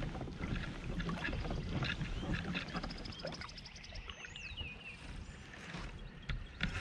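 Kayak moving slowly along a calm creek: a steady low wash of water along the hull with small clicks and knocks, while birds call, one giving a falling whistle about halfway through.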